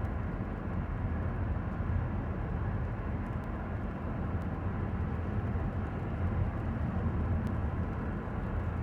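Steady road and engine rumble inside a moving vehicle's cab, with a few faint ticks.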